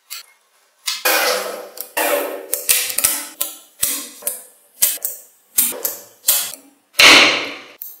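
Small magnetic balls clicking and clattering as rows of them are snapped onto a flat sheet of balls, in a string of separate rattling bursts, the loudest about seven seconds in.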